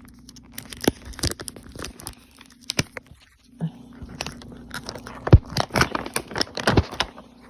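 Plastic jerky pouch being torn and pulled open: irregular crinkling and crackling of the packaging, with the sharpest, loudest crackles in the second half.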